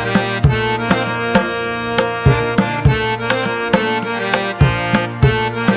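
Background music: regular drum strikes over held melodic notes.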